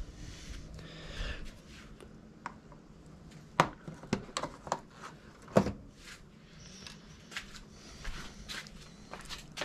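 Plastic push clips on a Jeep Wrangler JK's grille being pried out with a flathead screwdriver: sharp clicks and snaps, two loud ones about two seconds apart near the middle with a few smaller clicks between them, plus softer scraping of the tool.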